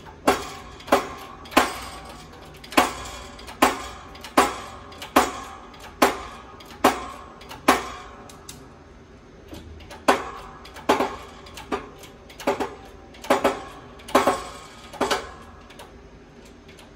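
Bottle jack of a hydraulic shop press being pumped with its steel handle: a sharp, ringing metal clank with each stroke, a little under one a second, with a short pause about eight seconds in. The press is pushing new bearings onto a cleaned ring gear and pinion.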